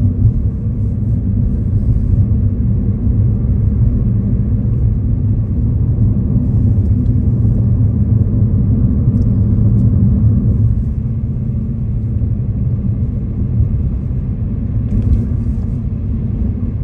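A car driving, with a steady low rumble of engine and road noise that gets slightly quieter about eleven seconds in.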